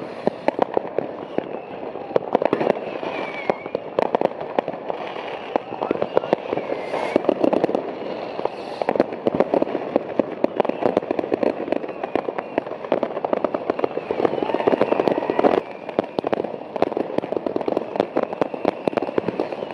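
Many New Year's Eve fireworks and firecrackers going off at once, a constant rapid run of bangs and crackles with no pause.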